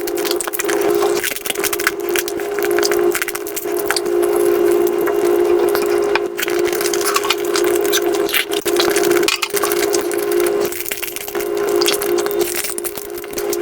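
Close-miked mukbang eating sounds played at five times normal speed: a dense, rapid stream of crackling, chewing and mouth clicks over a steady hum.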